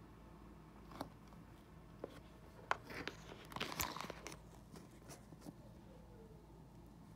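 Handling noise close to the microphone as the camera is moved: a few sharp clicks, then a short crackling rustle about three to four seconds in, over a faint steady background hum.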